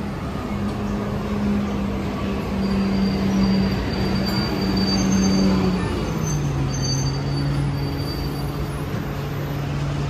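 Street traffic noise, with a heavy vehicle's engine running steadily close by; its pitch drops about six seconds in.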